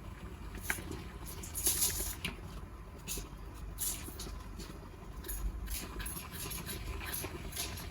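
Dry, papery onion skin crackling and rustling in short bursts as it is peeled by hand, over a steady low rumble of wind.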